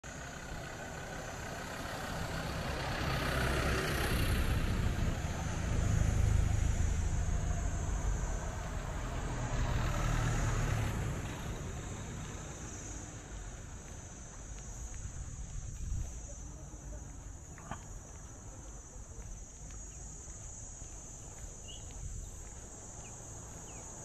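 Outdoor ambience: a vehicle passing, its rumble swelling over the first few seconds and fading by about halfway, over a steady high hiss.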